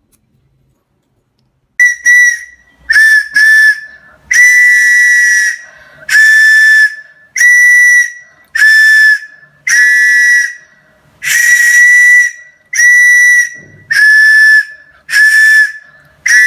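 Handmade three-tone bamboo whistle blown in about a dozen loud, shrill blasts, short and long, with a breathy hiss. Two or more close notes sound together in a rough chord.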